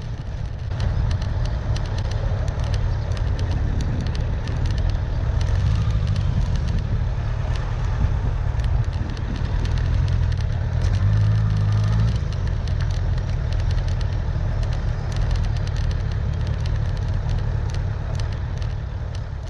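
Suzuki GSF1200 Bandit's inline-four engine running while the motorcycle filters through slow city traffic, under rumbling wind and road noise on the bike-mounted microphone with frequent crackling clicks.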